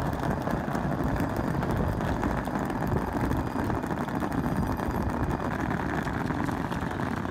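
Many wheeled suitcases and rolling travel bags trundling over brick paving, a steady dense rumble of fine rapid clatter.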